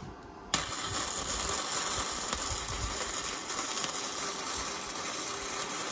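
Electric welding arc hissing and crackling steadily for about five seconds, starting and stopping abruptly: a repair weld on the quad bike.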